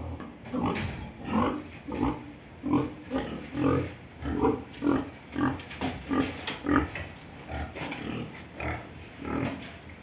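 Domestic pigs grunting: a steady run of short grunts, about two a second.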